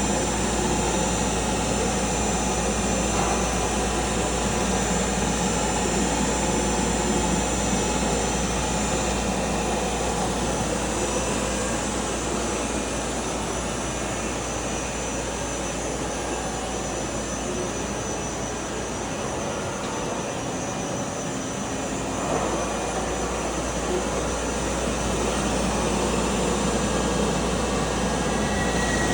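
CNC milling machine running steadily while thread-milling a truck axle, a continuous machine whine and hiss with several steady tones.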